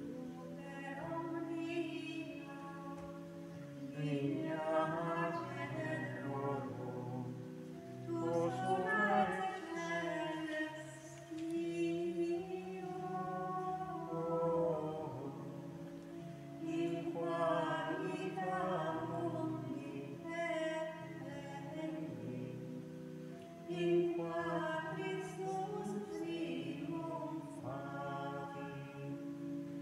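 A choir singing a slow sacred chant in phrases of a few seconds, over long-held low notes.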